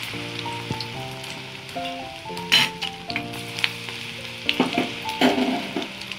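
Batter-coated cauliflower florets deep-frying in hot oil in a kadhai: a steady sizzle with crackling. A few louder clicks stand out about two and a half seconds in and again around five seconds.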